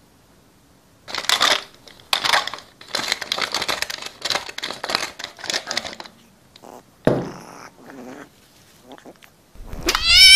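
Wooden pepper mill grinding in a run of short crunchy bursts. Near the end comes a loud, shrill creature screech that rises in pitch, the dubbed cry of the puppet ostrich chick as it opens its mouth.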